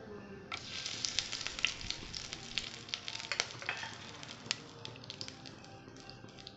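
Whole spices (cinnamon, cloves, cardamom and bay leaves) sizzling and crackling in hot oil in a pan. The sizzle starts briskly about half a second in, with many sharp crackles, and eases off toward the end.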